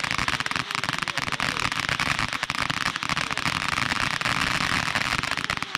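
Ground fountain firework spraying sparks: a steady hiss shot through with dense, rapid crackling.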